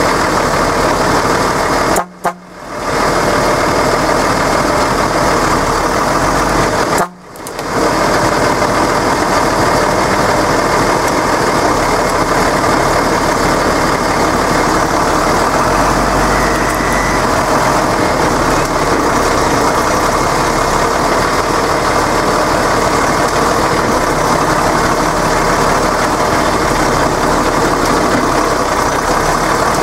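Deutz-Fahr tractor's diesel engine running steadily under load, close up, while towing a stuck off-road vehicle on a strap. The sound cuts out briefly twice, about two and seven seconds in.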